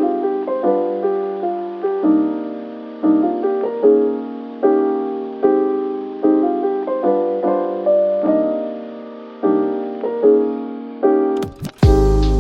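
Lofi background music: soft piano chords struck about once a second, each dying away. Near the end a beat with deep bass comes in.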